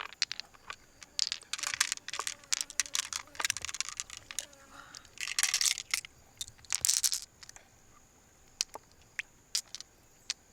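Freshwater mussel shells being handled and worked open: a dense run of sharp clicks, cracks and scraping, thinning to scattered clicks after about seven seconds.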